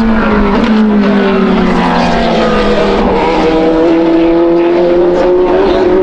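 Racing engines of GT cars, a Corvette C8.R's V8 and a Porsche 911 RSR, passing at speed. The engine notes fall in pitch over the first couple of seconds, then another engine note climbs slightly as a car accelerates.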